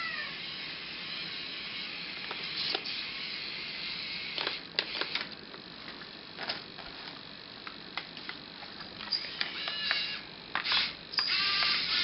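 A kitten meowing, several short meows, most of them in the last few seconds. Under them runs a steady high whir with scattered clicks from the radio-controlled excavator and logging truck models.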